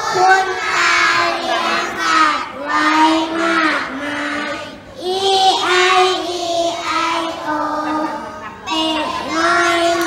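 A group of young children singing a song together in short phrases with brief pauses between them.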